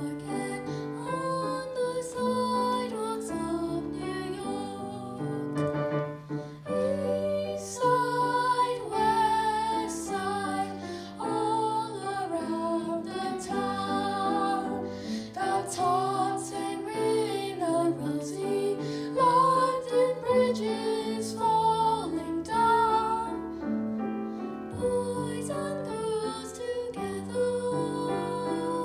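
A teenage boy and girl singing a duet to piano accompaniment, the girl's voice carrying much of the melody.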